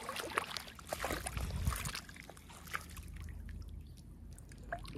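Shallow water sloshing and trickling as people wade through it, busiest with small splashes in the first two seconds, then fainter.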